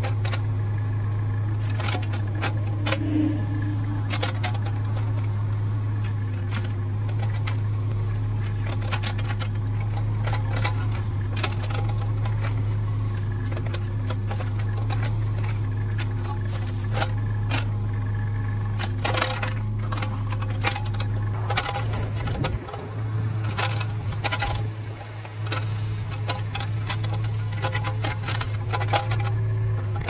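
Mini excavator's diesel engine running steadily while it digs a trench, with scattered knocks and scrapes from the bucket and arm working in soil. The engine note wavers and dips briefly a little over two-thirds of the way through.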